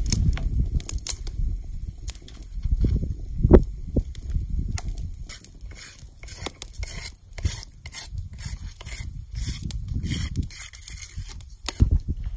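Irregular crackling and popping as shea butter melts on a fire-heated stone slab, with a wooden spatula scraping it across the rock and one louder knock about three and a half seconds in.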